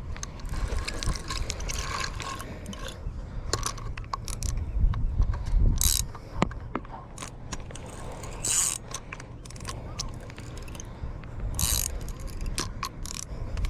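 Cheap fishing reel being cranked to bring in a hooked fish, its gears and clicker ratcheting in quick irregular clicks.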